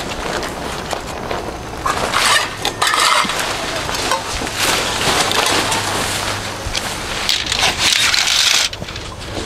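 Tent fabric rustling and crinkling in irregular bursts as the tent is taken down and bundled up, stopping suddenly near the end.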